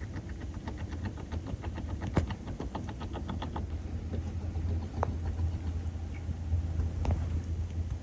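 Beavers working under river ice: runs of rapid fine clicks and a few sharper single knocks, over a steady low rumble.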